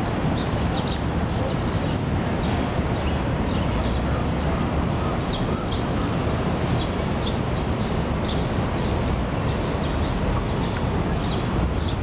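City park ambience: a steady low background rumble with small birds chirping in short, high calls, many times throughout.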